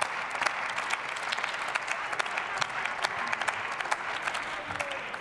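Applause from members of parliament in the plenary chamber: a dense wash of many hands clapping at a steady level, following the end of a speech.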